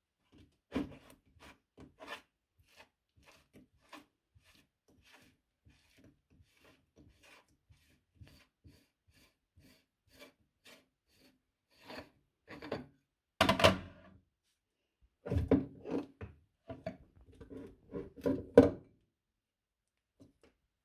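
Meat grinder working strawberry ice cream, with irregular rasping, scraping and crunching strokes and no steady motor hum. Louder crunching clusters come about two-thirds of the way in and near the end.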